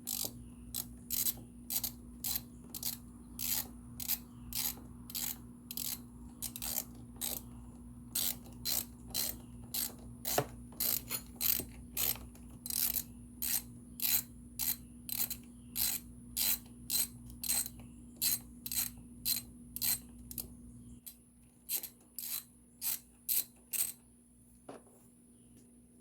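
Hand ratchet with an 8mm socket clicking in short bursts, about one to two a second, as bolts are loosened and backed out.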